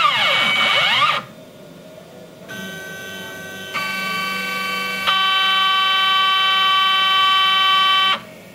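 Stepper motors of a CNC machine whining as it moves. For about the first second there is a whine that sweeps up and down in pitch. After a short pause, steady high whining tones start, grow louder in steps as further tones join, and cut off together near the end.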